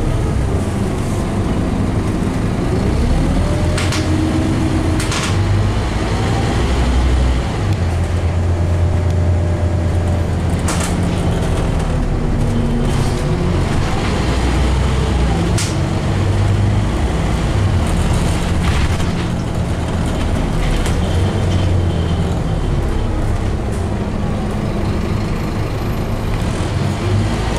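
Scania OmniCity N230UD double-decker bus heard from inside, its diesel engine and gearbox driving along, the whine rising and falling several times as it speeds up and changes gear. A few sharp rattles from the body and fittings come through.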